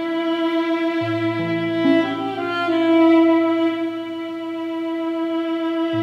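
Solo cello layered with a loop station: slow, sustained bowed notes sounding together, a high held note over a low bass note that comes in about a second in.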